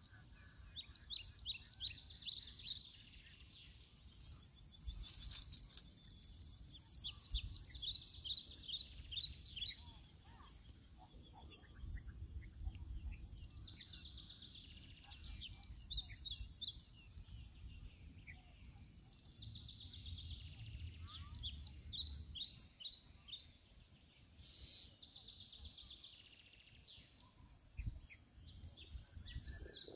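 Birds calling: bouts of rapid, high chirps, each lasting a couple of seconds and repeating every few seconds. Under them runs a low rumble that swells twice.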